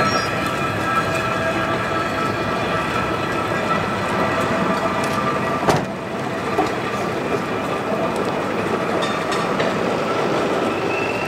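Steel wheels of a hand-pushed horse tram rolling along the rails, a steady rolling noise carrying a high whine from the wheels. A single sharp click a little past halfway.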